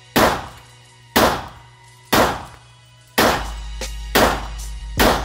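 A semi-automatic handgun fired six times in steady succession, about one shot a second, each report sharp and dying away quickly.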